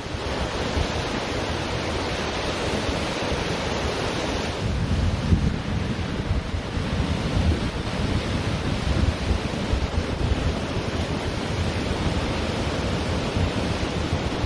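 Ocean surf washing on a beach, with wind buffeting the microphone as a gusty low rumble. The hiss of the wash is brighter for the first few seconds, then eases.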